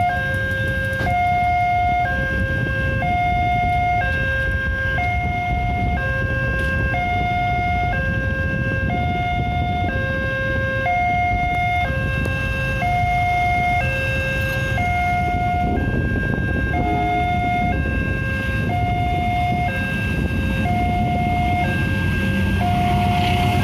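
Railway level-crossing warning alarm sounding, an electronic two-tone chime whose high and low notes alternate about once a second, warning that a train is approaching. Under it, the engines of waiting cars and motorcycles idle.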